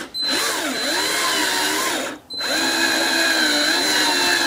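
Cordless drill with a step drill bit boring through hard plastic trim: the motor whine wavers up and down as the bit bites, cuts out briefly about two seconds in, then runs again at a steady pitch.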